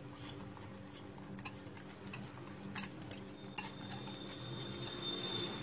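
Wire whisk stirring semolina and curd in a glass bowl, with scattered light clicks as the wires tap and scrape the glass.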